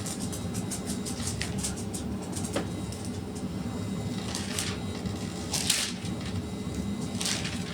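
Bible pages being leafed through: several soft paper swishes and small clicks over a steady low hum.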